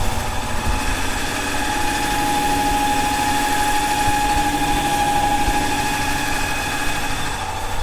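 Tata Ace engine running steadily at idle, a little louder through the middle.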